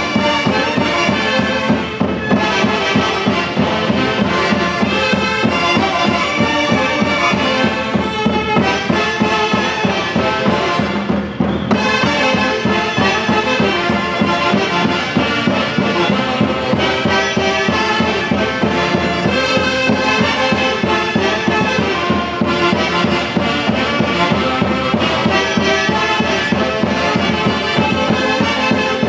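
Orquesta típica of saxophones, clarinets, harp, bass drum and timbales playing a traditional Andean tune, with a steady drum beat under the reeds.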